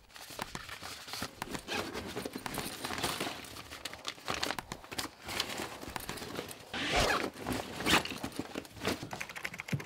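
Paper and card being handled and rustled: a steady run of crinkles and small clicks, with louder rustles about seven and eight seconds in.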